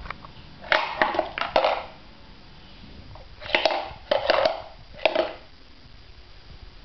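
A baby handling and knocking toy blocks on a play mat: a cluster of short rustles and knocks about a second in, and a second cluster from about three and a half to five seconds in.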